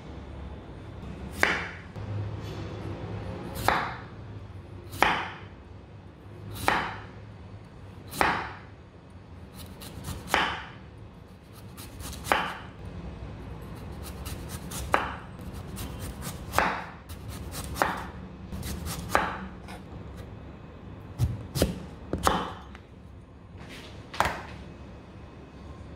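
Broad kitchen knife slicing a raw sweet potato into thin rounds on a wooden cutting board: a sharp chop every second or two, about fifteen in all, a few coming in quick pairs, over a low steady hum.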